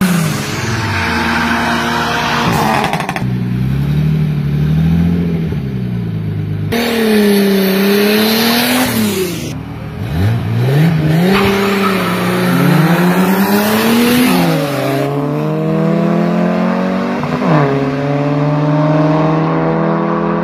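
Car engines revving hard and accelerating at a street drag race, their pitch climbing and dropping again and again.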